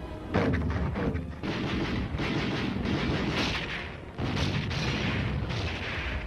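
Artillery guns firing: three heavy blasts, each followed by a long rolling rumble, as recorded on a 1950s film soundtrack.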